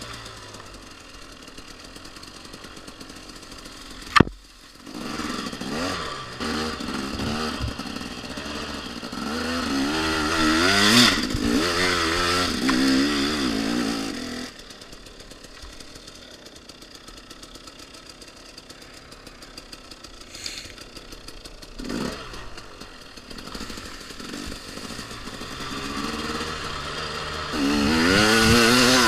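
2014 KTM XC-W 250 two-stroke dirt bike engine running at low revs and blipping the throttle, then revving up hard and wavering about ten seconds in and again near the end as it pulls away up a hill. A single sharp knock about four seconds in.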